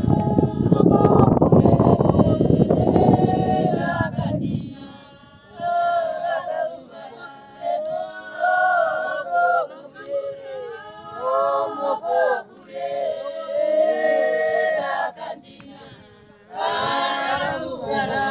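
Group of voices singing unaccompanied in short phrases with brief pauses between them. A loud low rumble covers the first four seconds.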